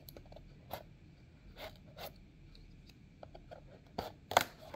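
Folding knife cutting along the side of a small cardboard box: a few short, faint scrapes spaced unevenly, the loudest a quick pair near the end.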